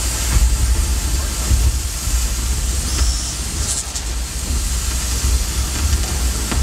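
Deep, steady rumble under a haze of hiss, an ambient sound-design score, with a brief high whoosh about three and a half seconds in.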